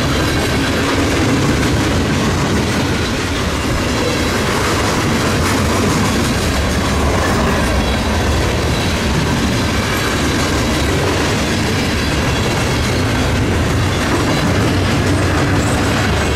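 Canadian Pacific train's cars rolling past at close range: a steady, loud rumble with wheels clattering over the rail joints.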